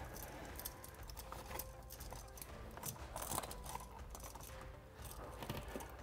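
Faint scattered clicks and light rattling as wall toggle switches, with their metal mounting straps, and their copper wires are handled and folded into a switch box.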